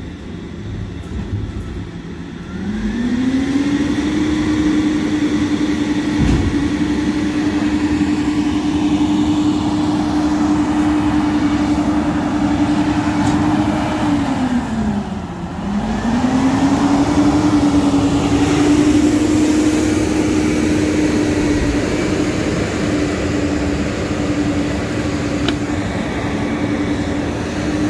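Garbage truck's diesel engine speeding up and holding a steady hum at raised revs, dropping back briefly about halfway through and then rising again.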